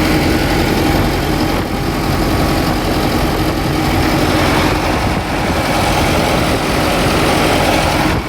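Old combine harvester's engine running steadily up close, a loud continuous mechanical drone with a steady hum.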